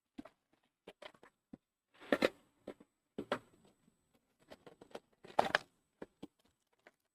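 A sealed trading-card hobby box being opened and handled. There are scattered light clicks and taps of cardboard and packaging, and three short, louder rustles of plastic or foil wrap.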